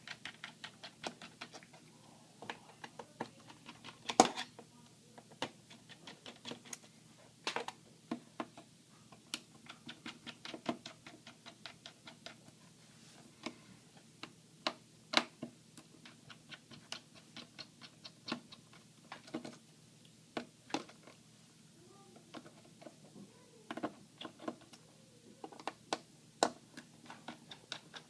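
Small screwdriver turning screws out of a laptop's plastic bottom cover: a string of irregular light clicks and ticks, with a few louder clacks now and then.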